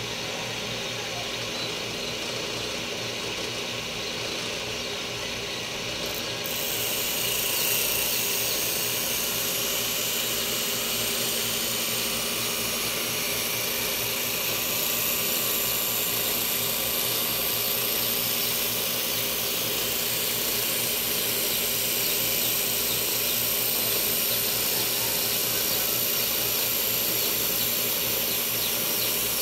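An electric power tool's motor running steadily, with a hissing, grinding noise that grows louder about six seconds in and then holds.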